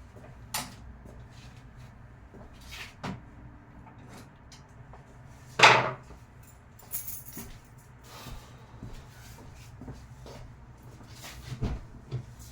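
A run of knocks and clatter from handling parts and tools, with one loud thump about six seconds in, over a faint, steady low hum.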